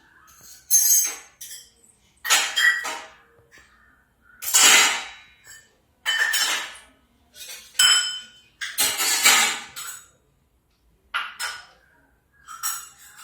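Dishes and kitchen utensils clinking and clattering as they are handled, in about eight separate bursts a second or two apart, some with a short metallic ring.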